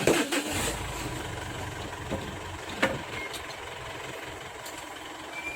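Truck engine idling, a steady low rumble, with two sharp knocks partway through and a short high beep near the end.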